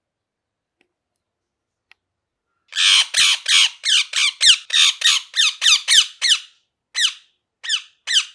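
Ringneck parrot squawking: a fast run of loud, harsh calls, about three a second, starting about three seconds in, then three slower, spaced calls near the end.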